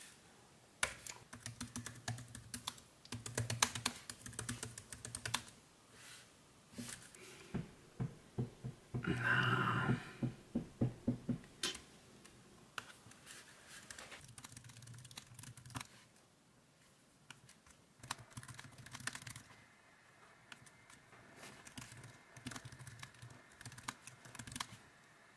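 Typing on a laptop keyboard: runs of quick key clicks with short pauses between. The fastest, loudest clatter comes about nine to eleven seconds in.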